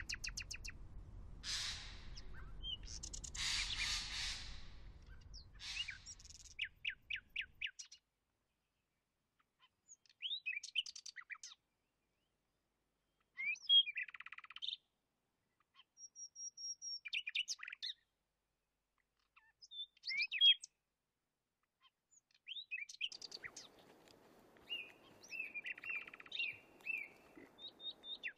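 Wild birds chirping and calling: short, sharp, sliding calls and quick trills that come in scattered bouts, with a low background rumble under the first several seconds that then stops.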